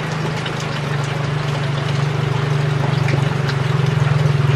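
A small engine running steadily, a low, fast-pulsing drone that grows slightly louder, with faint scattered crackles from the wood fire under a clay pan of banana-leaf parcels.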